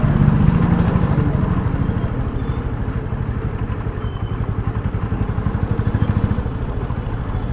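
Small motorcycle engine running at low speed as the bike rolls slowly, a steady low sound with a fast, even pulse.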